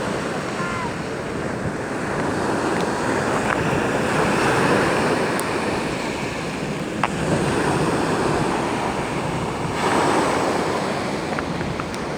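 Sea waves breaking and washing, surging louder every few seconds.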